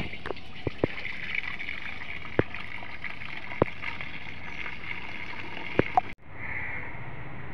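Onion-peel water pouring from a plastic bucket through a mesh net into a basin: a steady splashing stream with a few sharp clicks. About six seconds in it cuts off abruptly, giving way to a steadier, quieter outdoor background.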